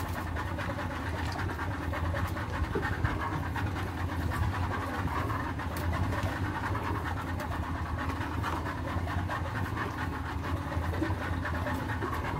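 Fishing boat's motor running steadily: a low, even hum with a fast regular pulse.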